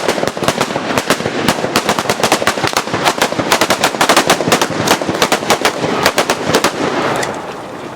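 Batteria napoletana firework battery going off: a rapid, continuous chain of firecracker bangs, many a second, that starts to die down about seven seconds in.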